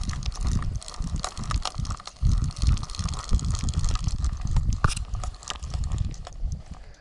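Handling noise close to the microphone: irregular rubbing rumbles and scattered sharp clicks as a hand works around the camera and a spinning rod and reel.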